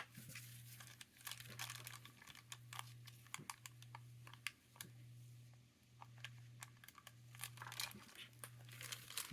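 Faint crinkling of a polyfilm sheet and small clicks of tweezers on the watch parts as the click spring of an ETA 2612 movement is worked free under the film. A low hum sits underneath, broken by short gaps about once a second.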